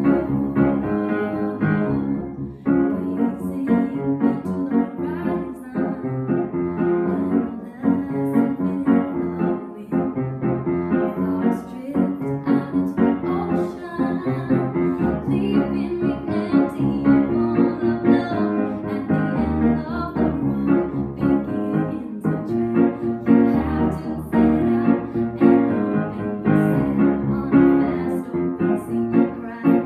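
Piano music: a song performed on piano with a woman's singing voice.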